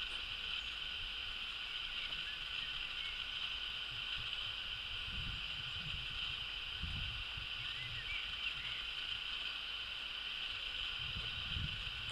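Lakeside outdoor ambience: a steady high hiss, with gusts of wind buffeting the microphone about five seconds in and again near the end, and a few faint bird chirps.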